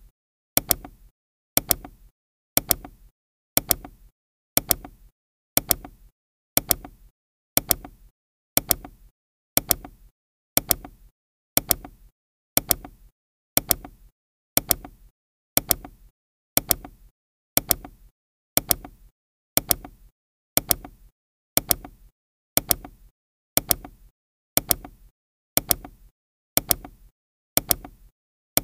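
Countdown timer ticking, one sharp tick each second, in step with the seconds counting down.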